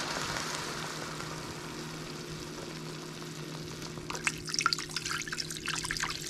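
Water poured into a hot stainless steel pot of sautéed onions: a sizzling hiss that dies away over the first few seconds, then splashing as the stream lands in the water from about four seconds in. A faint steady hum lies underneath.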